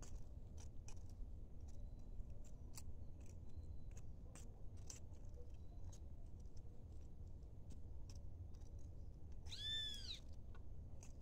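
Faint scattered clicks and scrapes of a small hand hoe working dry soil. About ten seconds in comes one short animal call that rises and then falls.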